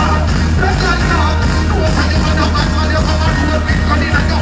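Live dancehall performance over a large sound system: a deejay chanting and singing into a microphone over a loud riddim with heavy bass.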